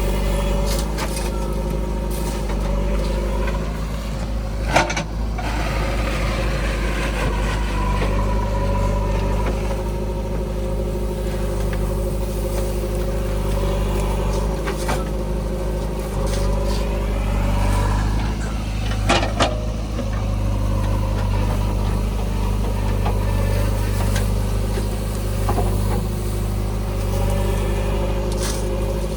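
Diesel engine of a JCB 3DX backhoe loader running steadily while it digs and loads mud, with a whine that rises and falls as the hydraulics work. Two sharp metal clanks, one about five seconds in and one near twenty seconds.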